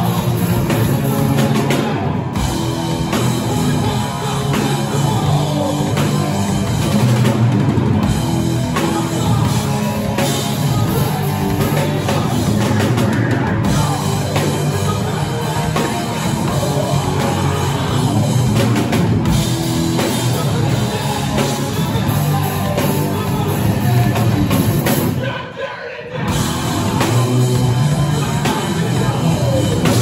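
A rock band playing live: electric guitars, bass guitar and a drum kit, with a brief break in the music about 25 seconds in before the band comes back in.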